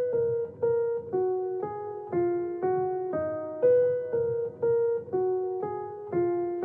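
Background music: a solo keyboard playing a simple melody in a piano sound, about two notes a second, each note struck and fading.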